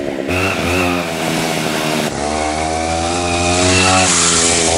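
Two-stroke chainsaw engine driving a small homemade moped under way, its note rising and dipping as the throttle is opened and eased several times.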